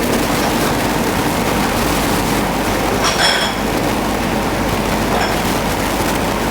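Steady hiss and hum of a working commercial kitchen, with a short metallic clink, like a utensil against a dish, about three seconds in.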